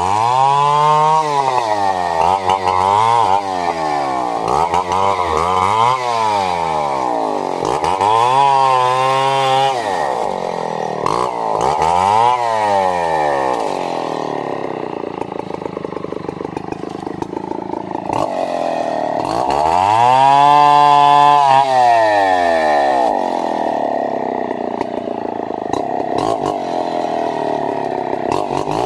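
Two-stroke chainsaw engine revved up and down over and over as it cuts wood, its pitch climbing and dropping every few seconds. It runs lower and steadier for a few seconds past the middle, then holds a long high rev.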